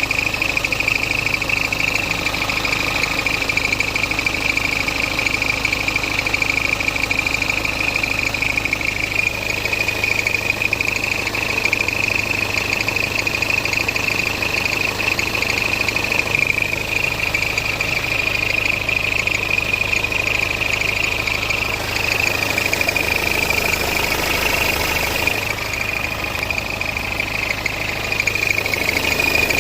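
BMW 520d's N47 four-cylinder diesel idling with a steady, high-pitched squeak running over the engine note.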